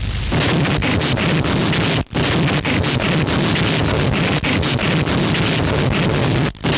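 Harsh noise music: a loud, dense wall of distorted noise across the whole range, with a jittery, choppy texture. It cuts out abruptly for an instant about two seconds in and again near the end.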